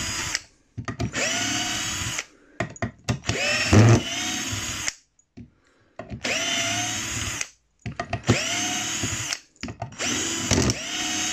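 Parkside PBSA 12 D4 12-volt cordless drill driver boring with a Forstner bit in repeated bursts of one to two seconds with short pauses. At each trigger pull the motor whine rises and then holds steady. A sharp knock sounds about four seconds in.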